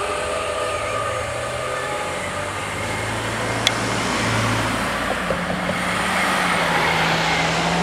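Cars starting off and driving across a railway level crossing, their engines rising in pitch as they pull away. A single sharp click comes about three and a half seconds in.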